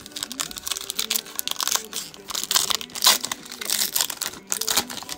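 Foil wrapper of a Panini Contenders football card pack crinkling and tearing as it is ripped open by hand: a continuous run of crackles, loudest about three seconds in.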